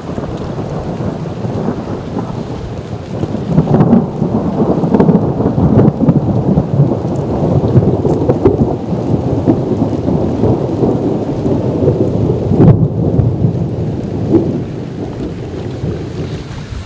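Rolling thunder rumbling over steady heavy rain. It swells a few seconds in, with its loudest jolt about three-quarters through, then eases toward the end.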